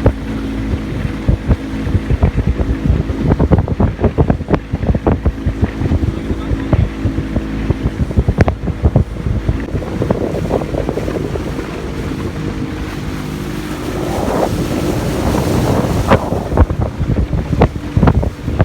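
Small boat's outboard motor running under way, a steady low drone, with heavy wind buffeting the microphone.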